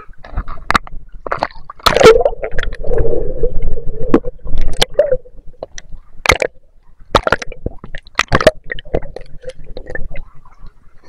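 Sea water sloshing and splashing against an action camera held at the surface and dipped under by a swimmer: a run of sharp slaps of water, with a denser stretch of gurgling about two to five seconds in.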